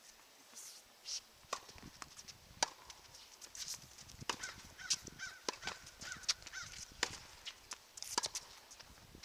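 Tennis balls being struck and bouncing on hard courts, heard as sharp pops at irregular intervals several times a second, with a few short bird chirps between them.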